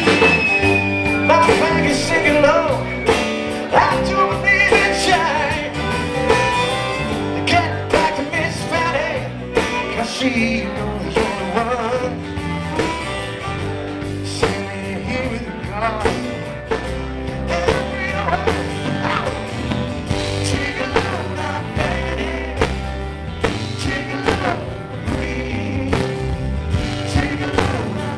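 Live rock band playing a song: electric and acoustic guitars, bass guitar and a drum kit keeping a steady beat, with singing over the top. A held high note sounds in the first few seconds.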